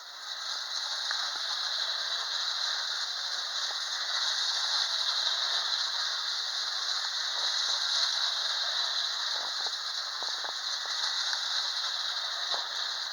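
Hafner clockwork windup tin-plate locomotive running around a banked tin-plate track: a steady whirring rattle of the spring motor and wheels on the metal rails, fading near the end as it runs down toward a stop.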